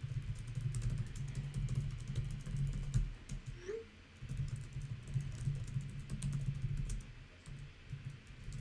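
Fast typing on a computer keyboard, a quick run of key clicks in two bursts with a pause of about a second between them. In the pause, just before four seconds in, there is a faint short rising chirp as a text message is sent.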